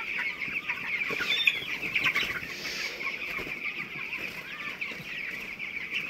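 A large flock of 20-day-old broiler chickens peeping and cheeping together in a dense, steady chorus of high calls.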